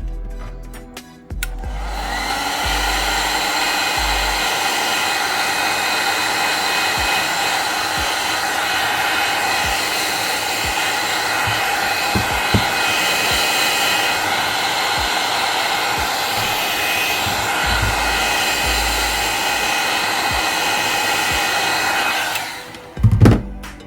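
Heat gun blowing hot air steadily with a fan whine, switched on about a second and a half in and off shortly before the end.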